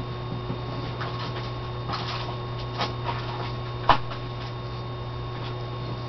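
Steady electrical mains hum, with a few light clicks and taps scattered through it, the sharpest about four seconds in.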